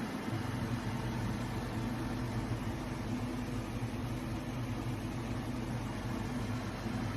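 Hisense portable air conditioner running: a steady fan whoosh over a low, even compressor hum.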